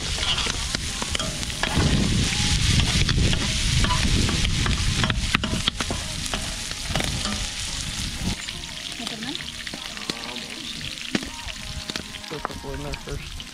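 Bacon frying in a big pan over a wood fire, sizzling and spattering with many small pops. It is louder in the first half and eases off about eight seconds in.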